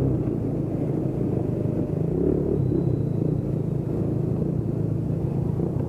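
Motorcycle engine running steadily while riding, under a low rumble of wind on the camera microphone.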